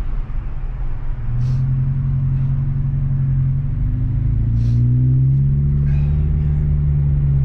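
Car engine heard from inside the cabin, a steady low drone that grows louder about a second in and changes pitch about halfway through as the car picks up speed.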